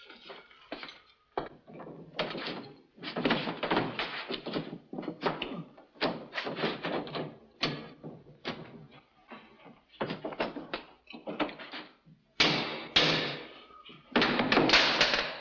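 Hammer striking a metal shower pipe over and over in irregular blows, each a clanking knock with a short ring. Near the end comes a louder, longer rush of noise.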